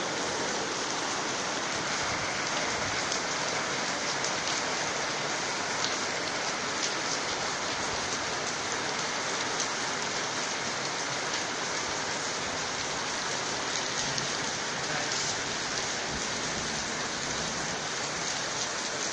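Steady rain falling on interlocking concrete paving stones, an even hiss with now and then a sharper drop impact.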